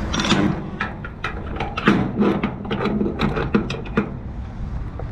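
Fuel pump nozzle and hose being handled and hung back on a marina fuel pump: a run of irregular metal and plastic clicks and knocks that stops about four seconds in.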